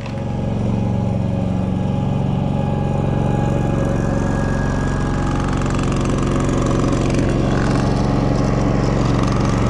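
DuroMax XP16000iH inverter generator's engine running steadily on propane while it carries a household load of well pump, sewage pump, air conditioner and electronics.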